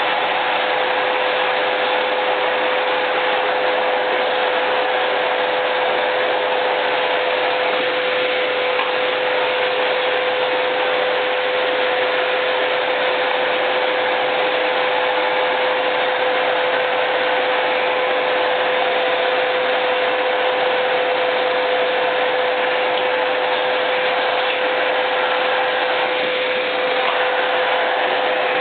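Numatic James canister vacuum cleaner running steadily: a rush of air with a strong, steady whine from the motor.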